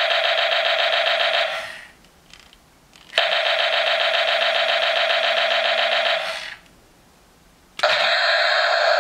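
Electronic sound effect from a toy RC battle tank's built-in speaker: a rapidly pulsing electronic tone played in bursts of about three seconds with short pauses between. One burst ends about a second and a half in, the next runs from about three seconds to six, and another starts near the end.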